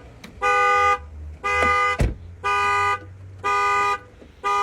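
A 2016 Dodge Dart's horn honking in its anti-theft alarm pattern: one honk about every second, each about half a second long. The sounding alarm means the car's security system is triggered. A sharp click comes about two seconds in.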